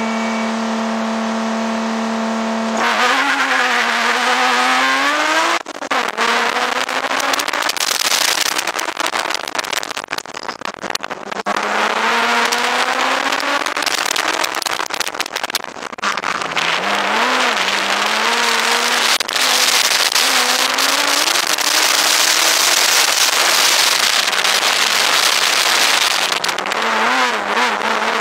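BMW E46 330Ci's 3.0-litre inline-six, heard from inside the cabin, held at steady revs for about the first three seconds, then rising and falling in pitch again and again as it accelerates and slows through an autocross course, over a steady rush of road noise.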